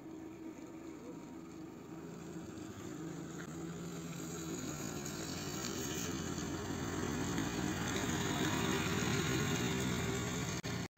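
Motor scooter running as it rides toward the listener on a slushy road, growing steadily louder as it comes closer; the sound cuts off abruptly just before the end.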